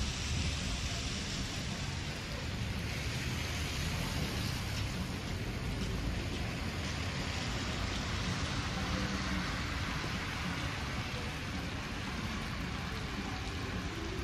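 Wet city street ambience: a steady hiss of car tyres on wet pavement over a low traffic rumble.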